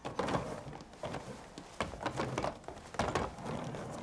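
Footsteps and light knocks of people moving through a doorway into a hallway: a handful of short, irregular taps and shuffles.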